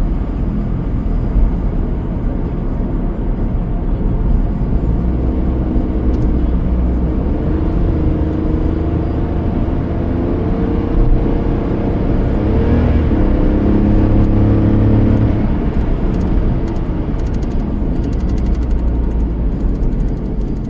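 Car driving on a road: steady low engine and tyre rumble, with the engine note rising and growing louder about halfway through before settling again.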